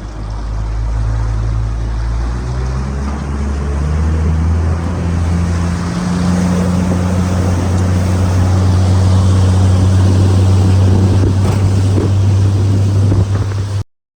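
Boat's outboard motor running under way, its pitch stepping up as it gathers speed and then holding steady, with wind on the microphone. It cuts off suddenly near the end.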